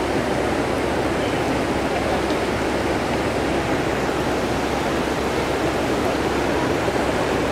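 Steady, loud rushing of fast-flowing floodwater, with faint crowd voices underneath.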